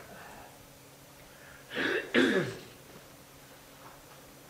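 A person clearing their throat: two quick bursts about two seconds in, the second falling in pitch.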